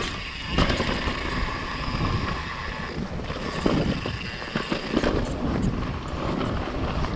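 Wind buffeting the camera microphone on a downhill mountain bike ride, with the tyres running over the dirt trail and scattered short knocks and rattles from the bike.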